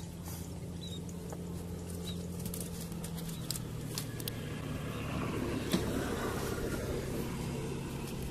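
A steady low motor hum, a little louder past the middle, with light clicks and rattles from a rusty wire-mesh trap being handled.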